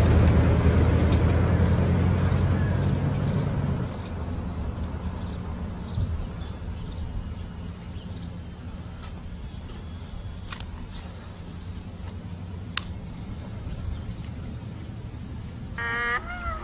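A low engine-like rumble that drops away about four seconds in, then a run of short high chirps, about two a second, with a few sharp clicks.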